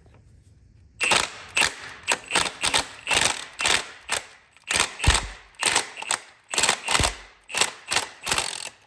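Hammer blows on a stud remover tool gripped on a heat-expanded exhaust manifold stud. A string of sharp metal strikes, about two a second, starts about a second in, with a couple of heavier thuds midway.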